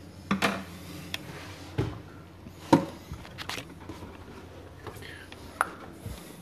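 Irregular knocks and clatters of objects being picked up, moved and set down on a desk during tidying, a handful of sharp hits with the loudest nearly three seconds in.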